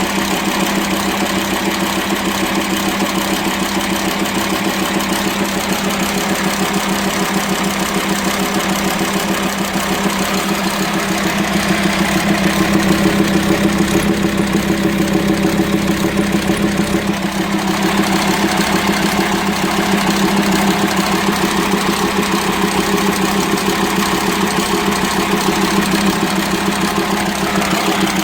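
Volkswagen Transporter T5 2.5 TDI inline five-cylinder diesel running at idle, noisy from the cylinder head and intake manifold. The noise comes from a worn, broken camshaft.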